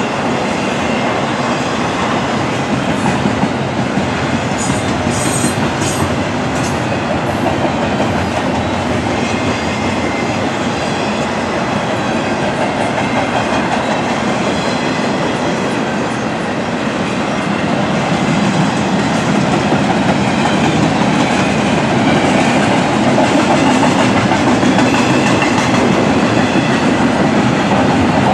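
Double-stack intermodal freight train rolling past: steady rumble and clickety-clack of the well cars' steel wheels over the rails, growing a little louder past the halfway point.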